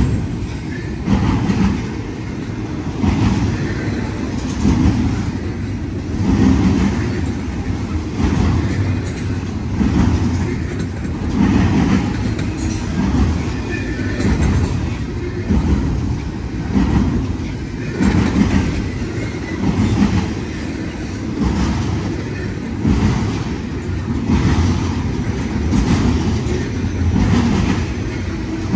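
Double-stack intermodal freight train rolling past: a steady rumble of steel wheels on rail with a clickety-clack that swells regularly about every one and a half to two seconds.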